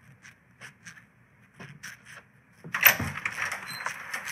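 A few soft footsteps, then about three seconds in an office door with a glass panel is pulled open with a sudden clatter. A steady rushing noise follows.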